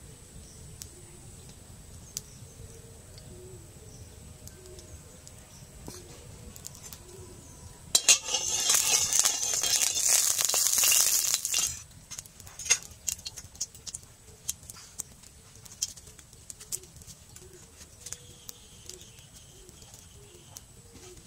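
Metal spatula scraping around the inside of an iron kadai for about four seconds, a loud, harsh rasp of metal on metal that stops abruptly. Before and after it there are only faint, scattered ticks.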